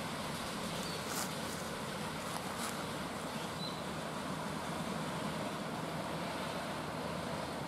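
7¼-inch gauge Queensland Rail BB18¼ live steam locomotive and its riding cars running along the track: a steady rumble, with a couple of faint clicks in the first few seconds.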